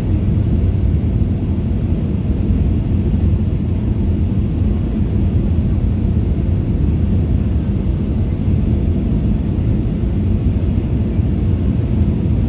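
Cabin noise of a Boeing 737-500 on final approach, heard from a seat over the wing: its CFM56-3 turbofan engines and the airflow make a steady low rumble.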